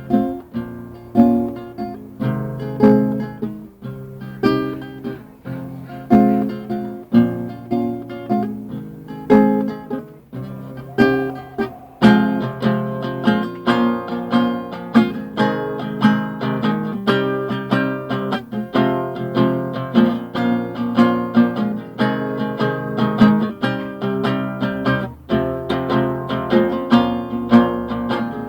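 Acoustic guitar playing an instrumental melody in plucked notes and strums. About twelve seconds in, the playing becomes fuller and busier.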